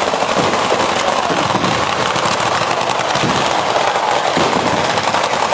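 Batteria alla bolognese ground fireworks: firecrackers going off in rapid, unbroken succession, a dense continuous crackle of small bangs.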